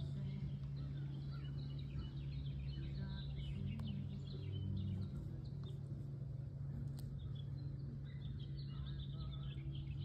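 Many small birds chirping in quick, scattered calls over a steady low hum.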